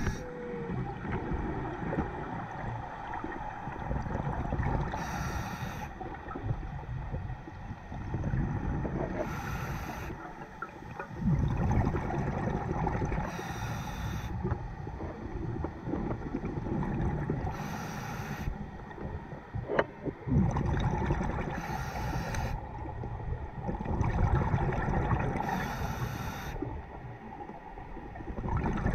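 A scuba diver breathing through a regulator underwater. A short hiss on each breath comes about every four seconds, with a low bubbling rumble between the breaths.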